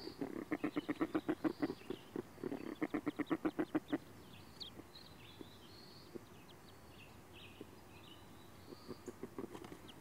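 Female common merganser calling at her tree nest cavity in fast repeated series, two runs of about seven calls a second in the first four seconds, then fainter calls near the end. These are the hen's incessant, repeated cries that call her ducklings to jump down from the nest.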